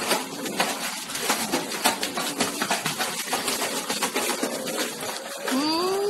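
Water splashing and slapping as pugs paddle and scramble at the edge of a pool, a busy run of short splashes and knocks. Near the end comes a drawn-out call that rises and then falls in pitch.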